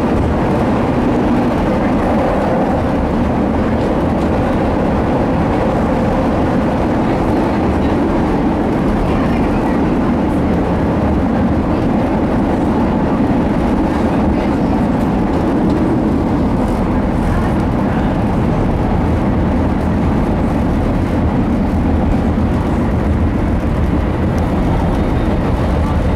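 CTA Blue Line rapid-transit car running at speed between stations, heard from inside the car: steady running noise of the wheels on the rails.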